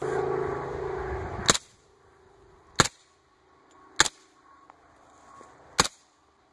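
Suppressed HK MP5SD 9x19mm submachine gun firing single shots: sharp, short reports spaced a second or more apart, four in all. The first comes at the end of a second and a half of steadier, louder noise.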